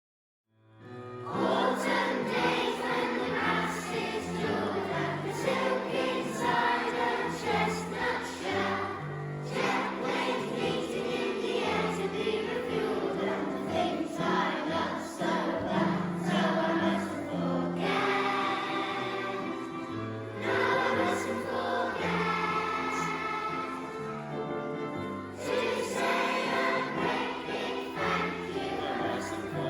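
Choir singing with musical accompaniment, starting from silence about a second in and carrying on steadily.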